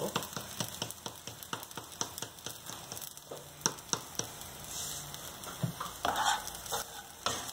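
Rice, onion and spice paste frying in oil in a nonstick pan, with a wooden spatula scraping and stirring through it: a steady scatter of small crackling ticks, a few louder.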